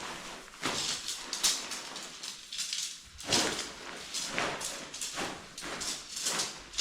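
Decathlon MH100 tent's synthetic fabric rustling and swishing in irregular bursts as the tent is folded up for packing.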